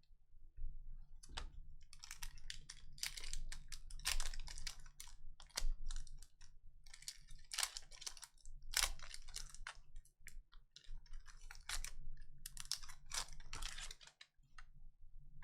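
Upper Deck hockey trading cards being flipped through and slid against one another by hand: runs of quick, light clicks and rustles that come and go in clusters.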